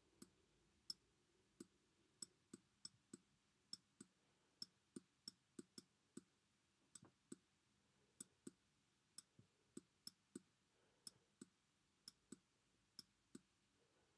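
Faint, sharp clicks at irregular spacing, about two to three a second, from a stylus tapping and lifting on a tablet's surface while words are handwritten.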